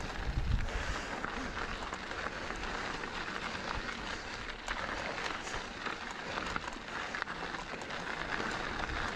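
Mountain bike rolling fast over dry, rocky dirt singletrack: a steady rush of tyre noise on the loose surface with many small clicks and rattles from gravel and the bike.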